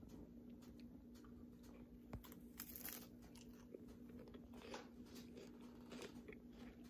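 Someone biting into and chewing a crisp apple slice with a soft topping, giving faint, irregular crunches close to the mouth, over a low steady hum.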